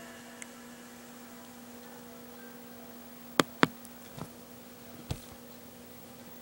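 A faint steady hum with a few sharp clicks, two close together near the middle and two more singly after, once the music has faded out.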